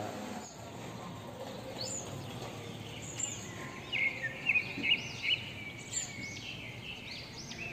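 Small birds chirping in quick, repeated short calls over a steady outdoor background hiss; the chirps start about two seconds in and are loudest near the middle.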